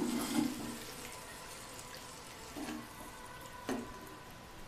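Water just added to hot okra masala in a non-stick frying pan, hissing and bubbling loudly at first, then settling to a steady simmering hiss. A metal slotted spatula stirs through it and knocks against the pan twice in the second half.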